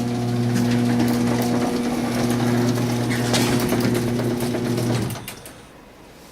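A small electric motor running with a steady mechanical hum that stops about five seconds in.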